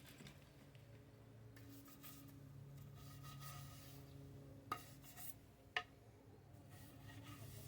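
Near silence with a faint steady low hum, broken by two sharp clicks about a second apart near the middle.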